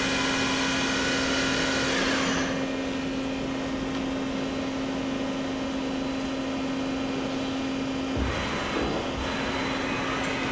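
Subspindle of a 1999 Daewoo Puma 200LMSA CNC turning center running at 2,500 RPM with a high whine that stops about two seconds in as the spindle shuts down. The machine's steady hum carries on, and near the end an axis slide moves with a low rumble.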